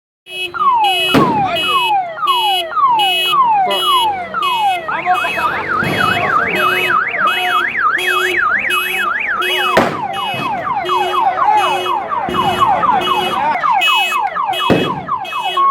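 A man imitating an ambulance siren with his voice. It runs as repeated falling sweeps, changes to a fast up-and-down yelp about five seconds in, then to quicker falling sweeps from about ten seconds, all over a steady pulsing beat.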